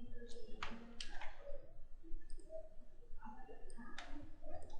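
A few sharp computer mouse clicks over faint voices in the background.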